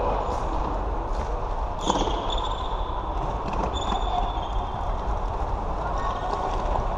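Floorball play: shoes squeak briefly on the hall floor about two and four seconds in, with a few sharp knocks of sticks and ball over a steady background din.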